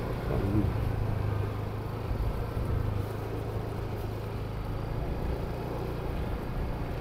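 A car's engine and tyres at low speed: a steady low hum over even road noise.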